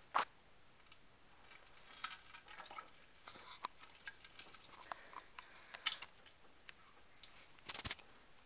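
Faint, irregular wet crackling and squishing clicks from a person defecating, with a sharp pop just after the start and a fuller pop near the end.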